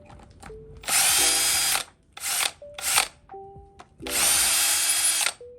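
Cordless power drill running a socket in four bursts, two long and two short, as it spins out the valve cover bolts on a 5.7 Hemi V8.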